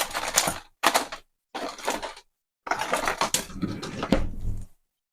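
An orange being zested on a grater: four bursts of scratchy scraping, the longest in the second half.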